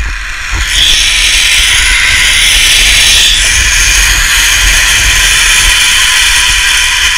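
Zipline trolley pulleys running along the steel cable: a loud, steady whirring hiss that starts under a second in, with wind rushing over the microphone.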